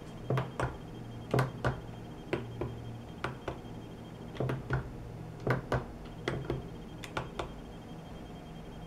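Keys of an Open DSKY, a replica Apollo guidance computer keyboard, pressed one after another to enter a Verb–Noun command: a string of sharp clicks, mostly in close pairs, about seven keys in all, stopping about two thirds of the way through. A faint steady electrical hum sits underneath.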